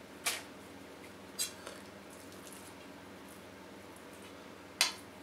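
A metal spoon clinking against a stainless steel mixing bowl while scooping pork momo filling: three short, sharp clinks with a few fainter ticks, the loudest near the end.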